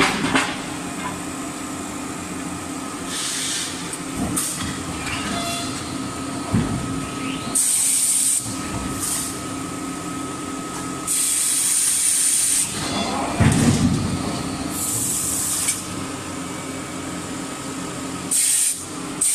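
Hot forging at an electric screw forging press: about seven bursts of loud hissing spray at the dies, some lasting over a second, over a steady machine hum with fixed tones, and a deep rumbling burst about two-thirds of the way through.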